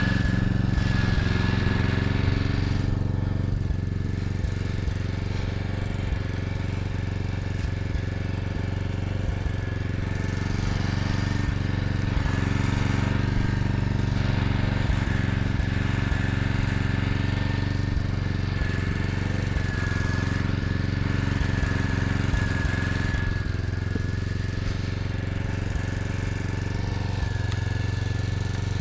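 An engine running steadily at an even speed: a constant low drone with a thin high whine over it.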